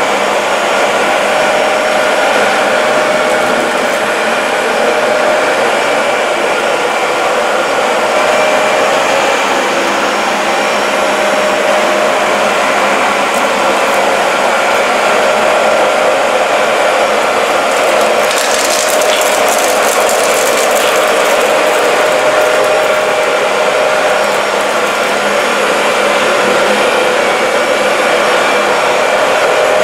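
Dyson DC40 MKII upright vacuum cleaner running steadily on a rug: a loud, even motor whine and airflow rush. About two-thirds of the way through there is a short spell of fine crackling.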